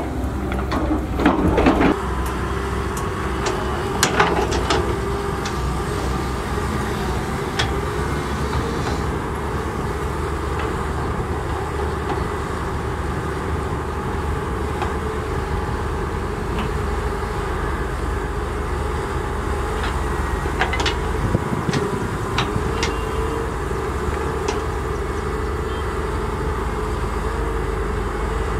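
Heavy diesel engines running steadily under load as a CAT 320 excavator's bucket rakes soil out of a raised steel dump-truck bed. Sharp metal clanks of the bucket on the bed come about a second in and again around four seconds in, with a few fainter knocks later.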